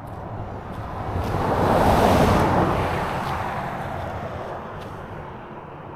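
A car passing at speed on the road, its noise swelling to a peak about two seconds in and then fading away.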